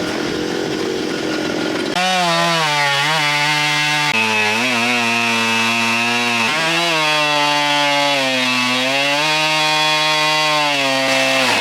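Husqvarna chainsaw on an Alaskan chainsaw mill running at full throttle through a large log. From about two seconds in, its engine note sags and recovers in pitch as it labours through the cut. The chain is probably not sharp enough, which the millers blame for a rough cut.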